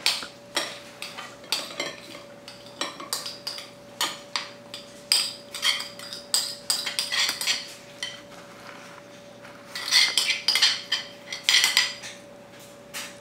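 Metal spoon scraping and clinking against white ceramic bowls as guacamole is scooped from a large bowl into a small serving bowl: a run of irregular scrapes and clinks, busiest near the end.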